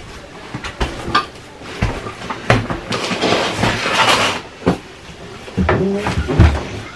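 A bathroom trash can being emptied: scattered knocks and clatters of the can, a rustling stretch of a little over a second in the middle as the plastic bag is handled, and a few heavier thumps near the end.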